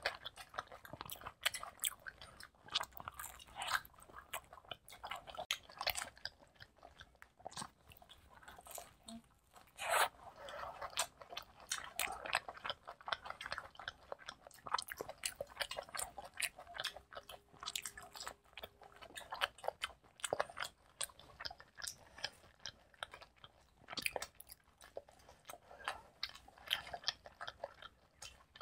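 Two people chewing and biting into pizza slices close to the microphone: a steady run of short, irregular mouth clicks and crunches, one sharper bite about ten seconds in.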